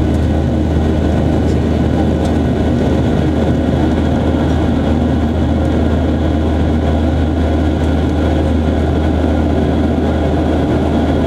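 Steady cabin drone of a Boeing 737-800 climbing after takeoff: its CFM56-7B turbofan engines heard through the fuselage from a seat beside the engine, a deep even rumble with a few faint steady tones above it.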